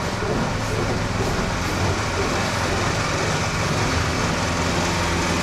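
Milking machine running in a milking parlour: a steady hum with an even rushing noise from the vacuum system.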